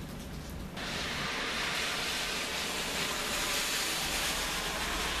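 Heavy rain during a thunderstorm: a steady hiss of falling rain that suddenly grows louder and brighter a little under a second in, then holds even as the downpour intensifies.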